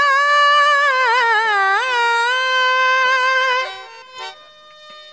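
A woman singing a long, wavering, melismatic held note of a bhajan, which ends about three and a half seconds in. After it, a harmonium plays a quieter run of short notes.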